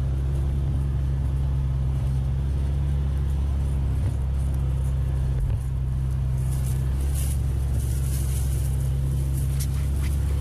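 Side-by-side UTV engine running steadily while driving, heard from inside the open cab as a loud, even low drone. Scattered light rattles and clicks come in over the second half.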